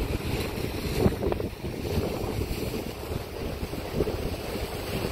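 Wind buffeting the microphone in a steady low rumble, with sea surf washing below and a brief knock about a second in.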